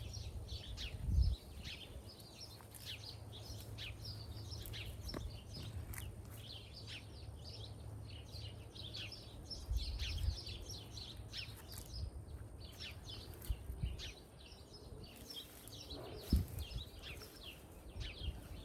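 Many small birds chirping and singing at once, without a break, over a low outdoor rumble. A few dull low thumps break in, the loudest about a second in and again near the end.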